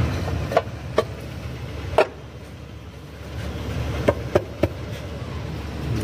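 Sharp metallic clinks of tools and engine parts being handled on a bare cylinder head: six short knocks with a brief ring, two close together early and a quick run of three near the end, over a steady low rumble.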